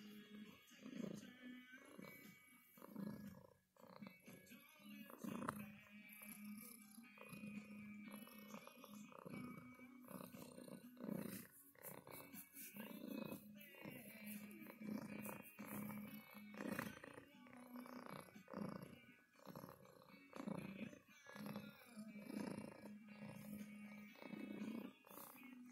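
Tortoiseshell cat purring close to the microphone, a low steady rumble that swells and eases with each breath, along with rustling from a hand stroking its fur.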